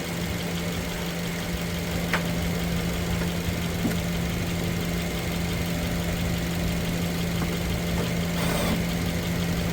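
Subaru Impreza's flat-four boxer engine idling steadily, with a light click about two seconds in and a brief rustle near the end.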